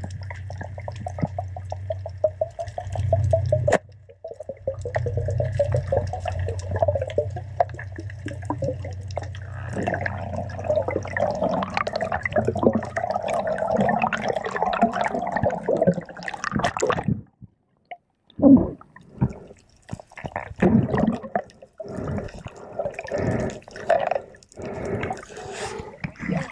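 Underwater sound heard through a camera housing on a free-dive: a steady low hum with crackling clicks. After about 17 s this gives way to irregular sloshing and splashing of water as the diver comes up to the surface.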